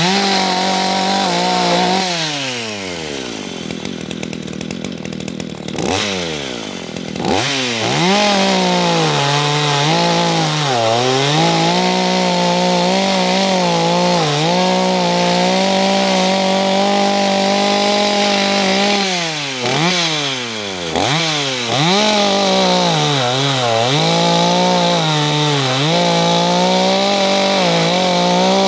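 Two-stroke chainsaw cutting through a fallen log. The engine drops back toward idle for a few seconds early on, then runs at full throttle with repeated short dips in speed as the chain loads up in the wood, and eases off briefly about twenty seconds in before cutting again.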